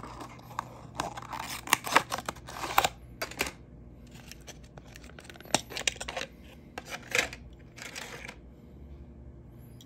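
Unboxing a diecast model car: a cardboard box and clear plastic clamshell handled and opened, with rustling, scraping and sharp plastic clicks, busiest in the first three and a half seconds, then a few scattered clicks as the car is lifted out.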